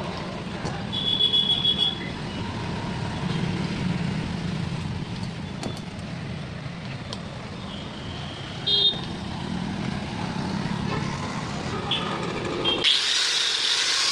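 Steady low rumble of road traffic with two brief high tones, about a second in and again near nine seconds. Near the end it cuts abruptly to a loud hiss.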